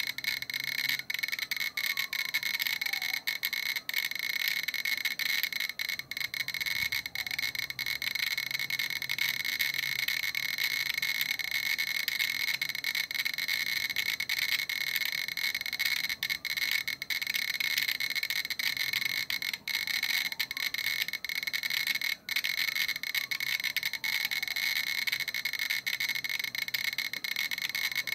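GQ Geiger counter ticking very rapidly, about fifty counts a second, which blurs into a dense, steady crackling buzz. This is its count rate of about 3,000 counts per minute, caused by the gamma radiation of a uranium-238 metal sample.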